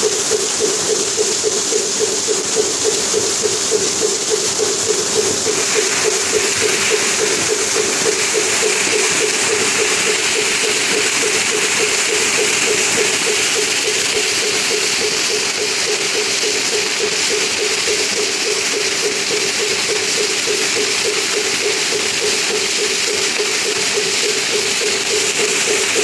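Small waterfall pouring over rocks and splashing into a shallow stony pool: a loud, steady rush of falling water that turns brighter and hissier after about six seconds. A rapid low pulsing runs under the rush for the first several seconds, then fades.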